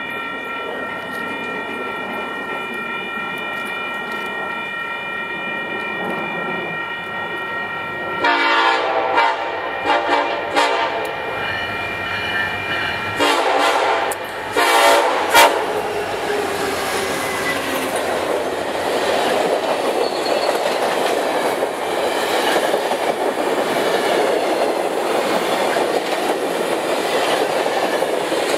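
A grade-crossing signal bell rings steadily. About 8 s in, Union Pacific SD70ACe heritage locomotive No. 1995 sounds four loud horn blasts as it approaches the crossing. The train then passes close by in a steady rush of wheel-on-rail noise.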